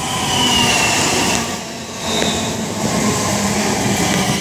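Two coupled Class 350 Desiro electric multiple units pulling into the platform, wheels running over the rails, with a high whine that falls in pitch during the first second or so.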